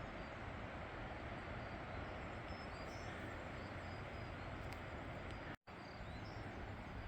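Quiet outdoor ambience: a steady soft hiss with faint, short bird chirps scattered through it. The sound cuts out completely for an instant about five and a half seconds in.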